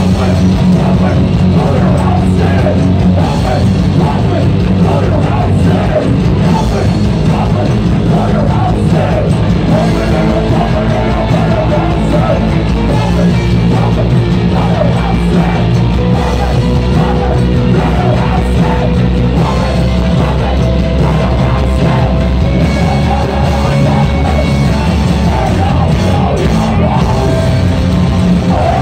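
Live punk rock band playing loudly, with yelling over the music.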